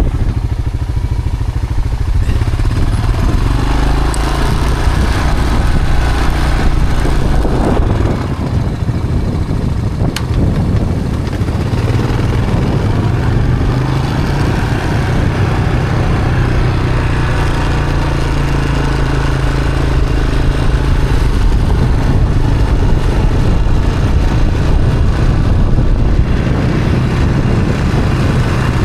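A small gasoline engine running continuously, its pitch shifting a little now and then, most likely the engine of a Frontier portable band sawmill.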